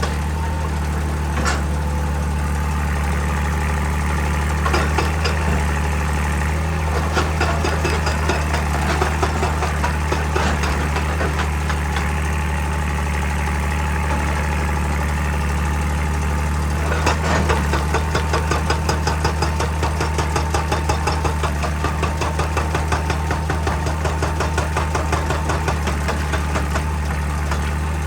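Excavator diesel engine running steadily, with rapid repeated knocks of a hydraulic rock breaker striking rock, which become louder and more regular about 17 seconds in.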